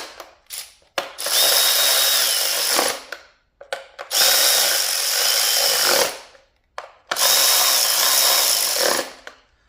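Cordless electric tool driving the coil-pack hold-down bolts into a plastic valve cover. There are three runs of about two seconds each, with short blips between them, and the motor's whine drops in pitch near the end of each run as the bolt draws tight.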